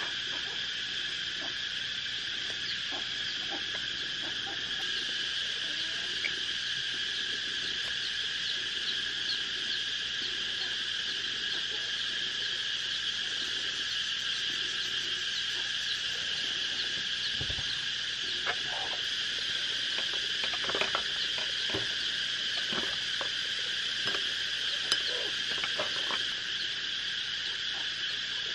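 Steady chorus of insects droning, like crickets or cicadas, with scattered light clicks and taps as chopsticks handle snail shells on a metal tray.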